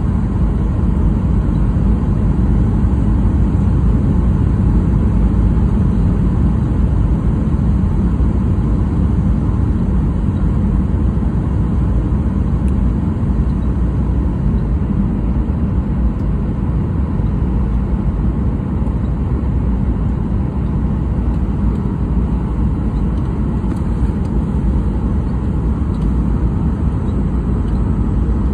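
Jet airliner cabin noise in flight: a steady drone of engines and rushing air heard from a window seat, heaviest in the low range.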